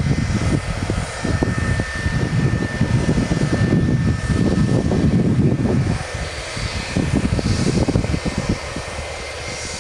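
A Turkish Airlines jet airliner's engines running as it rolls along the ground: a loud, fluttering low rumble with a thin steady whine in the first half.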